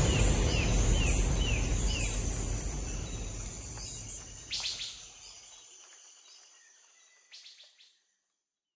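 The background music track fades out to silence. In the first two seconds there is a run of short, falling, bird-like chirps, and about four and a half and seven seconds in there are a couple of brief clicks. It goes silent about eight seconds in.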